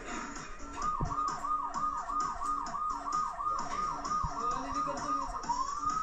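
A children's electric police ride-on trike's toy siren, played through its built-in speaker: a fast yelp of falling chirps, about three a second, then switching to a long rising wail near the end.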